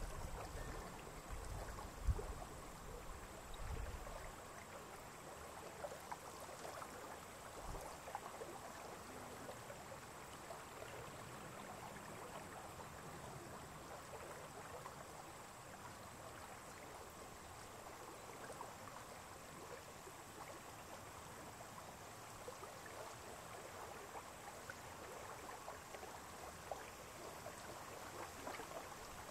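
Faint, steady lapping of lake water, a fine patter of small splashes. Gusts of wind rumble on the microphone in the first few seconds.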